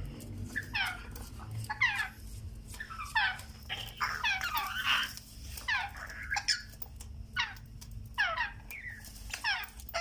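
African grey parrot chicks calling over and over, several birds at once: short calls that slide down in pitch, about two a second, some overlapping.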